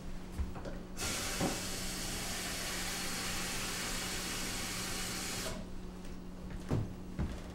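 Water tap running into a glass for about four and a half seconds, then shut off sharply; two soft knocks follow near the end.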